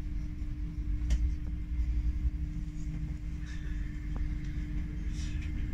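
Low rumble and a steady hum inside a GWR Class 800 IET carriage, with a sharp click about a second in and a fainter one past four seconds.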